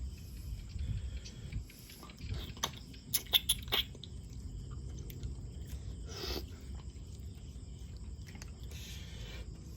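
A person eating close to the microphone, chewing, with a quick run of sharp clicks about three seconds in and a short rustling noise near the middle.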